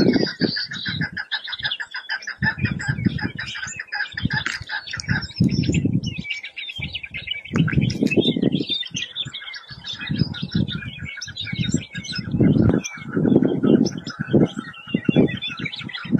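Chukar partridges calling, a dense rapid chattering of repeated clucks that runs on with several birds overlapping. Intermittent low rumbles sit underneath the calls, loudest in the last few seconds.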